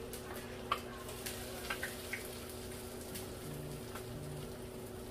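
A few light clicks of metal tongs against a bowl as battered fish fillets are dredged and lifted, over a faint steady hiss and hum.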